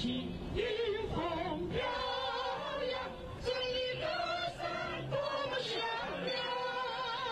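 Singing with musical accompaniment: long held notes with a slight waver over a low backing.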